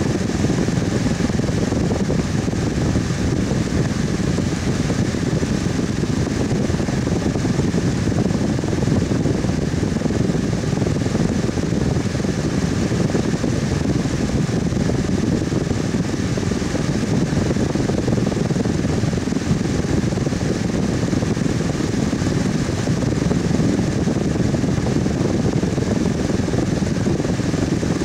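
Electric fan running steadily: an even, low whooshing rush of air with a faint hum, unchanging throughout.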